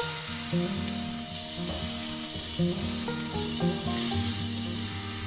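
Ribeye steak searing in a very hot cast-iron skillet: steady sizzling of the meat and fat while a spatula presses the steak down. Faint background music plays under it.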